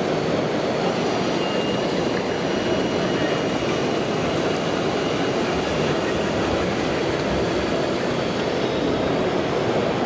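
Steady mechanical din of RC scale construction machines running among hall noise. A faint high whine runs from about one second in until after six seconds.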